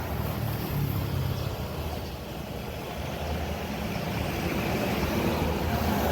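A motor vehicle's engine running steadily with road noise, growing gradually louder toward the end.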